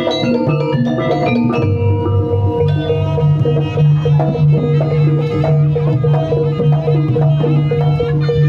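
Javanese jaranan-style gamelan music: tuned metal percussion playing repeating melodic notes over drums and sustained low tones, in a steady rhythm.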